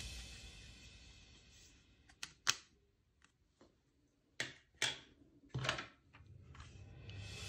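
Background music fading out, then a handful of sharp plastic clicks and knocks as toy guns and plastic goggles are handled and set down on a table, with a short rattle near the end.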